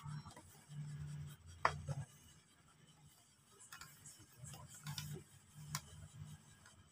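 Electric clothes iron sliding back and forth over embroidered cloth: faint rubbing strokes, with several sharp clicks as the iron is moved and set down.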